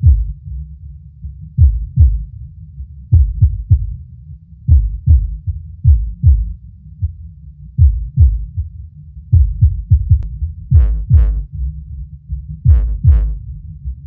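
Sony SA-CS9 10-inch powered subwoofer playing a bass-heavy music clip: deep, punchy bass hits about two a second, with brief higher sounds twice near the end. It plays cleanly, with no buzzing from the cabinet, driver or amplifier.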